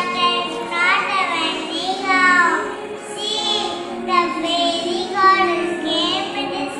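A child's high singing voice, phrases rising and falling, over a steady musical accompaniment.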